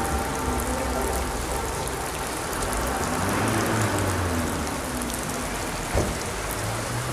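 Steady heavy rain falling, with fine drop ticks throughout and a faint low hum underneath. A single sharp knock comes about six seconds in.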